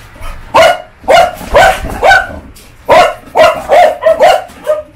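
Chow Chow barking repeatedly, about ten sharp barks in quick succession: the dog barking at visitors who have come into the house.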